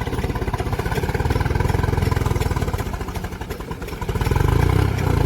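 Tractor diesel engine running with a steady, fast beat while working, growing louder about four seconds in as it takes more throttle or load.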